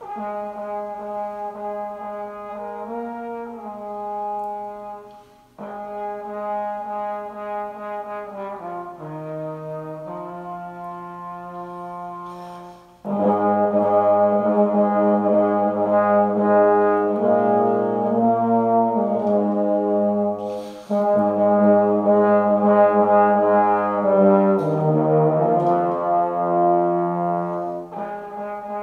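A trombone ensemble, one player multitracked in eight parts, playing slow sustained chords in a chant-like chorale. Phrases are broken by short breaths, and the sound grows fuller and louder from about halfway through.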